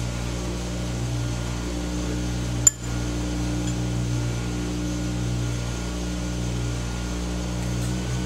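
A steady mechanical hum, like a room appliance or air conditioning, with one sharp click about a third of the way in.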